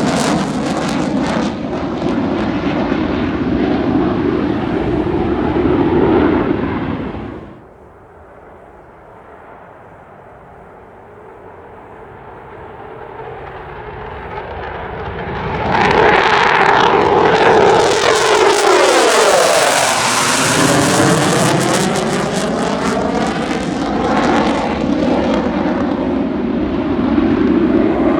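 F-15 fighter jets taking off, their twin Pratt & Whitney F100 afterburning turbofans at full power. The jet noise drops away suddenly about seven and a half seconds in. It then builds again as another jet approaches, and at around sixteen to twenty seconds in it sweeps past with a swooshing, phasing shift in pitch before staying loud.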